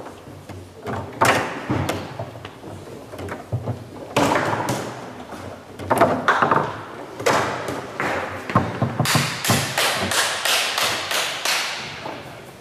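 Foosball played hard on a Leonhart table: the ball knocks against the plastic men and the walls, and the rods thud against the table sides, in irregular hits. A quick run of taps comes in the last few seconds, about five a second.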